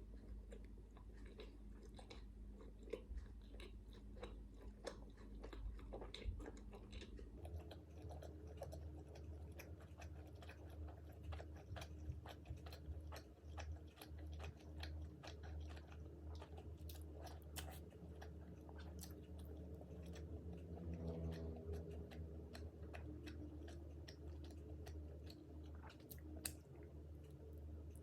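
A person chewing and biting crunchy fried food close to the microphone, with many small crisp crunches and wet mouth sounds.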